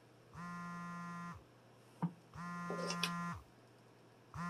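Mobile phone vibrating with an incoming call: three steady one-second buzzes, two seconds apart, the third starting near the end. A sharp click and some brief handling rustle come around the second buzz.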